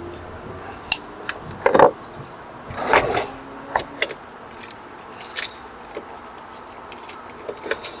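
Wire strippers working on electrical wire and being handled: a scatter of sharp metallic clicks and snips, the loudest just under two seconds in. A longer clatter comes about three seconds in, as the tool is laid down on the wooden deck.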